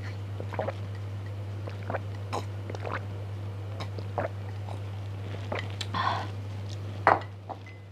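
Close-up gulping from a glass mug: a string of swallows, each a short wet click, about two a second. Around six seconds in comes a short breathy sound, and just after seven a sharp knock, over a steady low hum.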